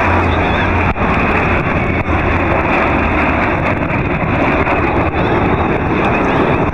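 Steady roar of jet engines from a formation of jet aircraft flying past overhead.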